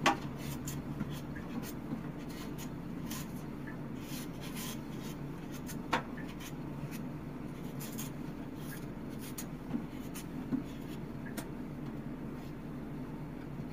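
Kitchen knife peeling the skin off a sweet potato: a run of short, light scraping strokes, with a couple of sharper clicks, over a steady low hum.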